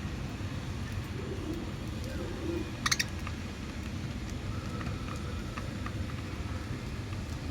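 Soft, low cooing bird calls over a steady low hum, with two sharp clicks close together about three seconds in that are the loudest sound.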